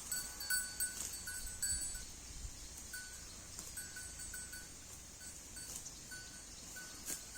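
Small bell on a grazing cow clinking irregularly in short, same-pitched tinkles as the cow moves its head while feeding, busier in the first couple of seconds and sparser after, over a faint high hiss.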